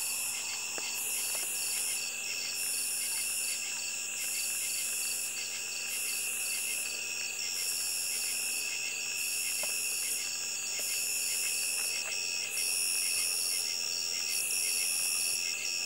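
Night chorus of crickets and other insects: several steady high trills at different pitches, with one very high call pulsing on and off about every second and a half.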